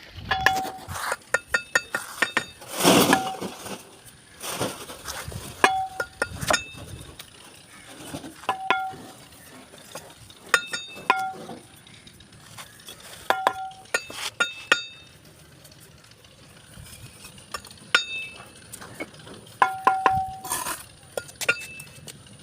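Hard objects clinking against each other in irregular clusters. Each strike leaves a short ringing tone at the same pitch, with a brief scrape about three seconds in.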